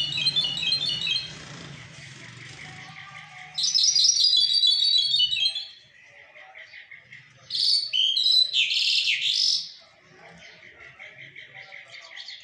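Caged mashadi jall songbird singing in bursts of fast, high trills of repeated notes and varied warbling phrases. The loudest bursts come about four seconds in and again near eight seconds, with softer rapid notes between them.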